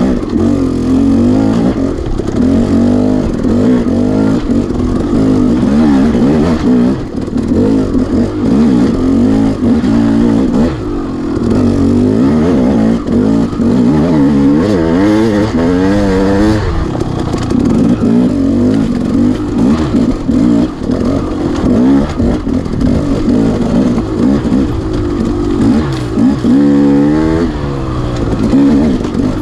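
Dirt bike engine running hard, its pitch rising and falling continually as the throttle is opened and shut, with a quick run of climbing revs shortly before the end.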